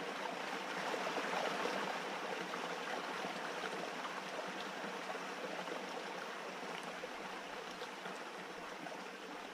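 Steady rushing of running water, like a stream, slowly fading.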